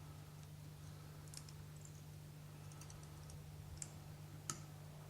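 A few faint, sharp clicks over a steady low hum: copper wire being wrapped around the dubbed body of a nymph at a fly-tying vise, small ticks of the wire and tools.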